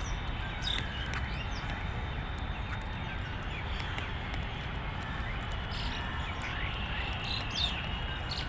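Scattered short bird chirps and whistles over a steady low background rumble.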